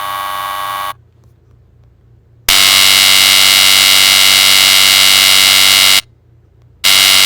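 Electric high-voltage buzzing sound-effect previews played back one after another: a buzz that stops about a second in, then a louder steady buzz for about three and a half seconds, and another starting near the end.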